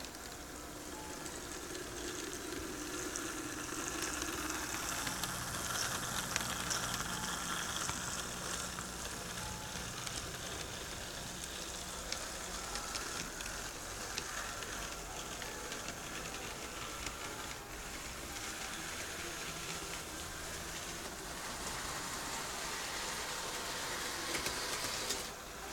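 HO scale Krokodil model electric locomotive running on the layout track: a steady whir of its motor with hiss and scattered clicks of wheels on rail. It grows louder over the first few seconds and drops off sharply near the end.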